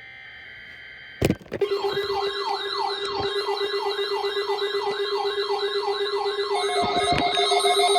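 Electronic wailing siren sweeping up and down about twice a second over a steady low tone. It starts after about a second of steady high-pitched tone and a sharp click.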